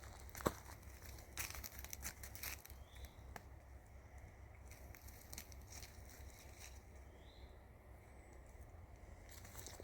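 Faint crackling and rustling of dry leaves and twigs as goats browse and move through forest undergrowth, with a sharp snap about half a second in and a cluster of crackles a second or two later.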